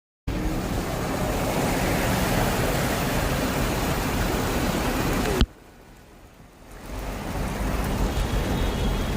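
Steady rushing noise of water. It cuts off abruptly about five seconds in, and after a quieter second or so it builds back up.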